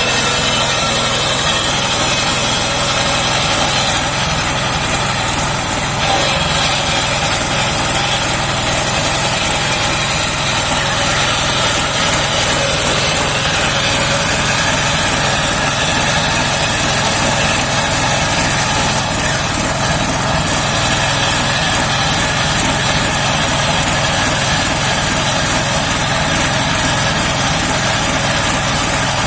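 The engine of a homemade mobile circular sawmill running steadily, with a steady high hiss above it.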